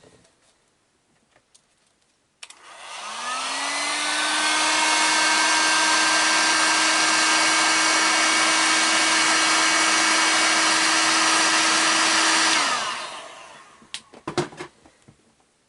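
Heat gun switched on about two and a half seconds in, its fan motor rising in pitch as it spins up, then blowing steadily to shrink heat-shrink tubing over soldered wire joints. It is switched off near the end and winds down.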